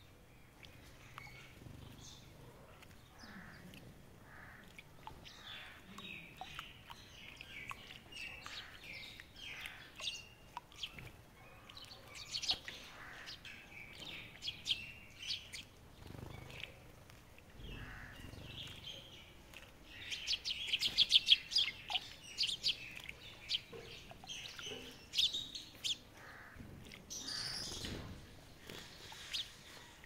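A small flock of Eurasian tree sparrows chirping, with short, high chirps scattered throughout. About two-thirds of the way through comes a dense run of rapid, louder chirping.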